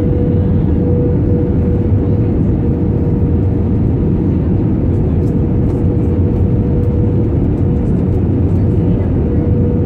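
Airbus A320 cabin noise on approach with flaps extended, heard from a window seat over the wing: a loud, steady roar of engines and airflow, with one steady tone running through it.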